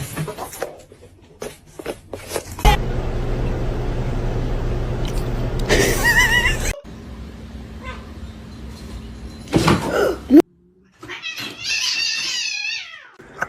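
A cat yowling: two drawn-out, wavering meows, one about six seconds in and a longer one near the end that falls in pitch.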